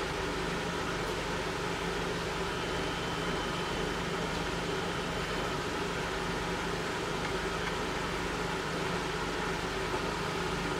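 Steady mechanical hum over an even rushing noise, with no separate scratches or knocks standing out.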